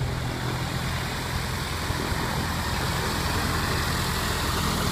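Single-engine Piper light aircraft's piston engine and propeller running at idle as it taxis: a steady drone.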